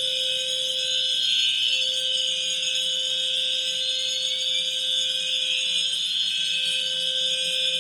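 Several fire alarm appliances sounding together: a loud, continuous high-pitched ringing and sounding, with a slow rising sweep tone repeating every few seconds and a steady lower tone underneath.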